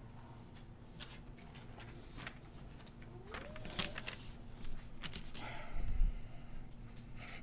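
Footsteps and small clicks and rustles in a quiet, hushed room as a person walks up to a podium, with a dull low thump about six seconds in.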